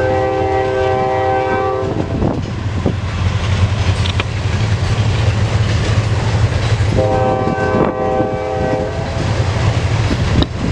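Locomotive horn sounding two long blasts, the first ending about two seconds in and the second starting about seven seconds in. Under them runs the steady rumble and wheel clack of a loaded CSX coke train of hopper cars rolling past.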